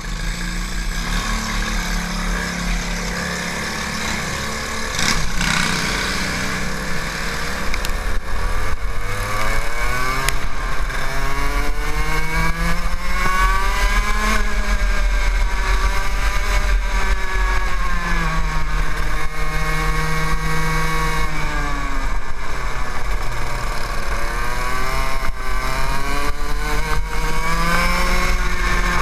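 TaG racing kart's two-stroke engine, heard from on board. It runs at low, fairly even revs at first, then revs up and down over and over as the kart accelerates along the straights and lifts for the corners.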